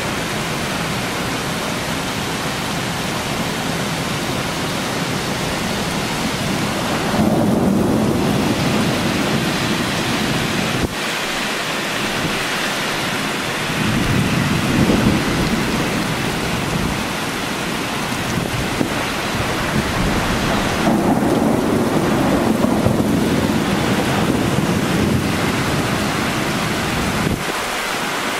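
Heavy rain falling steadily, with rolling thunder rumbling three times: about a quarter of the way in, around the middle, and again from about two-thirds through.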